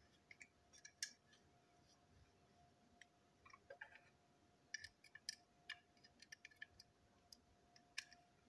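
Faint, scattered clicks and light taps of small toy-locomotive parts and screwdrivers being picked up and set down on a tabletop, with a quick cluster of clicks near the middle and single taps at the start and end.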